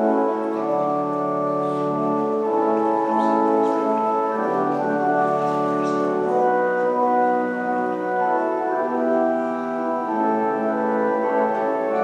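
Slow instrumental music of long held, organ-like chords that change every second or two.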